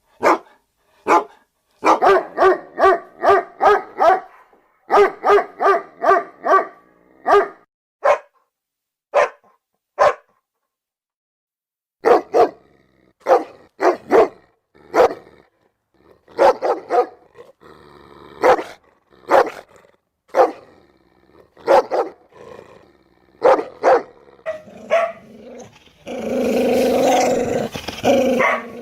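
Dogs barking, with sharp single barks and fast runs of about five barks a second, then more scattered barks after a short silence. Near the end comes a louder, continuous stretch with growling.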